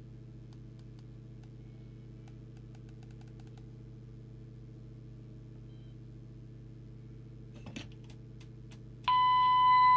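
Faint clicks of the microphone's buttons over a low steady hum, then about nine seconds in a steady test tone comes on loudly from the Midland M5 CB radio's speaker: the signal generator's test signal being received once the volume is up.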